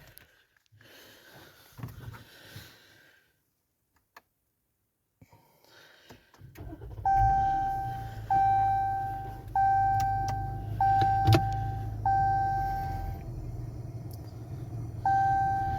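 Inside the cabin of a 2017 Jeep Cherokee, the 3.2 L V6 engine starts and runs about seven seconds in. A dashboard warning chime sounds over it, five times about a second apart and once more near the end. Before that there is faint shuffling, then a short quiet spell.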